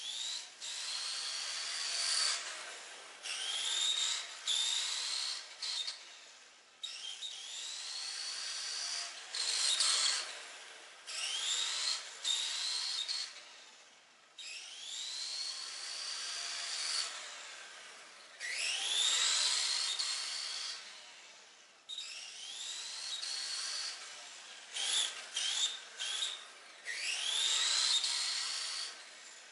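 Tamiya TT-01 radio-controlled car's Light-Tune brushed electric motor and gears whining in a dozen or so bursts of throttle. Each burst is a rising whine that cuts off sharply when the throttle is released.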